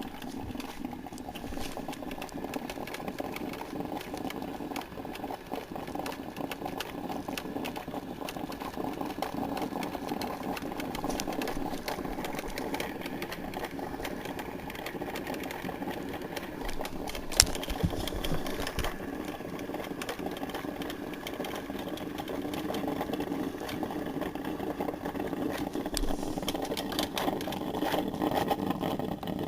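Black & Decker thermal carafe drip coffee maker brewing: a steady, rapid sputtering and bubbling as the water in the reservoir is heated and pumped through. A single sharp click comes about seventeen seconds in.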